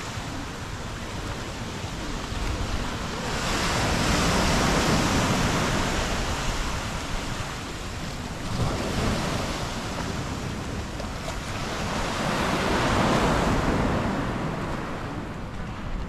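Sea waves washing against the stone base of a pier, the surf swelling louder twice and ebbing between, with wind buffeting the microphone.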